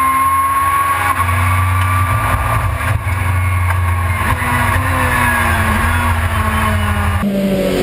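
Touring race car's engine heard from inside the cockpit, running hard under acceleration with its pitch slowly rising. Near the end the sound cuts abruptly to a different car's engine note, lower in pitch.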